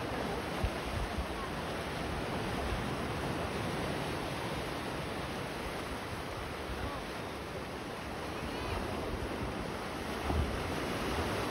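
Ocean surf washing steadily against a rocky shore, with wind gusting on the microphone in a few low thumps near the start and about ten seconds in.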